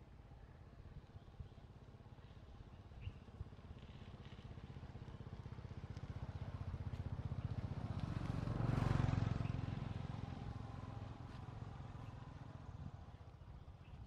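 A motor vehicle passing by: its engine grows louder over several seconds, is loudest a little past the middle, then fades away.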